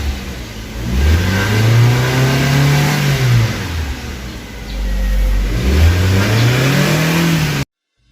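Nissan X-Trail engine being revved: its pitch rises to a plateau about a second in, falls back, then climbs again near the end before cutting off suddenly.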